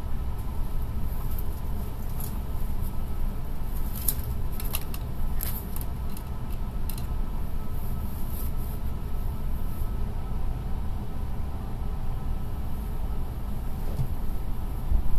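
Steady low rumble and hum inside a stationary E6 series Shinkansen car, the sound of its onboard equipment while it waits at the platform. A few faint high clicks come about four to seven seconds in.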